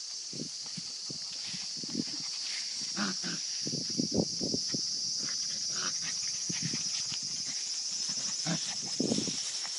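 Kishu x Shikoku puppies play-fighting, giving short growls and yips in bursts, several together a few seconds in and another near the end. A steady high insect chorus carries on behind.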